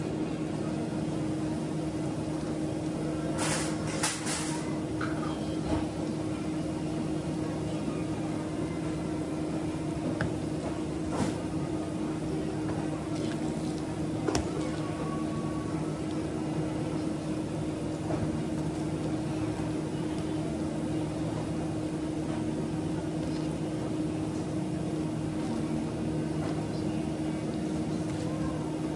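Steady hum of commercial kitchen machinery, with a few light knocks and clicks from handling fish on a wooden cutting board about four seconds in and again around eleven and fourteen seconds in.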